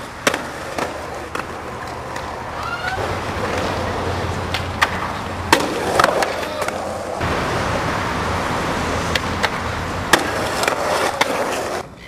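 Skateboards rolling on rough concrete, a steady grinding rumble of the wheels, broken by repeated sharp clacks of boards popping and landing.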